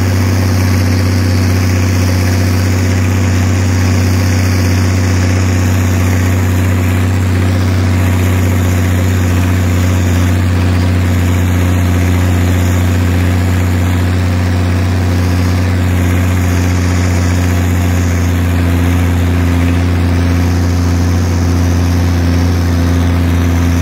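Zetor Crystal 16145 tractor's six-cylinder turbo-diesel engine running at steady revs while the tractor drives along, a loud, even low drone that does not change pitch.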